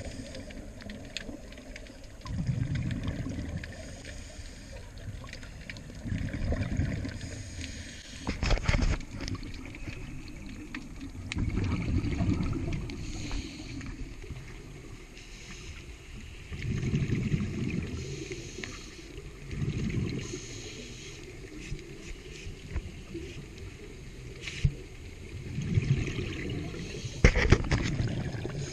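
Scuba diver breathing through a regulator underwater: a hiss on each inhalation, then a rumbling burst of exhaled bubbles, repeating irregularly every few seconds.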